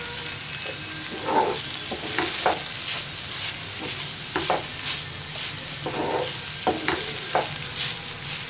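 Wooden spatula stirring and scraping cooked rice around a pan, a few strokes at a time in three spells, over a steady low sizzle of frying; salt is being mixed into the rice.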